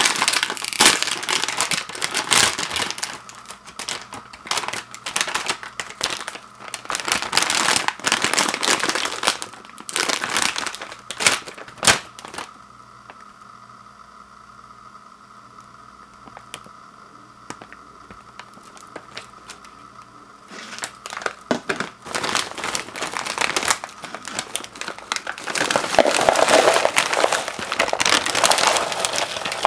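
Plastic snack bag of Takis rolled tortilla chips crinkling as it is pulled open and handled, then a quiet stretch of several seconds in the middle. Crinkling starts again, and near the end the hard rolled chips tumble and rattle as they are poured from the bag into a plastic bowl.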